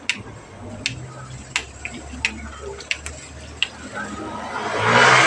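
Irregular sharp pops and crackles from a wood cooking fire burning under a wok of simmering coconut-milk stew. Near the end a passing motor vehicle grows loud and drowns them out.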